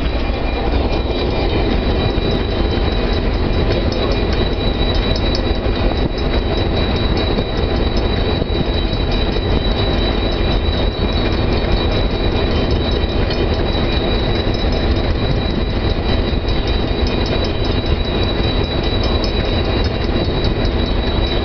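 Cab of a DCP-class diesel-electric locomotive on the move: a steady low rumble of engine and running gear, a thin high whine over it, and light clicks from the wheels on the rails.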